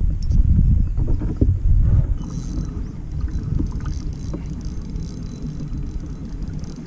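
Wind rumbling on the microphone over a kayak on choppy water, stronger for the first two seconds and then easing, with a few light knocks.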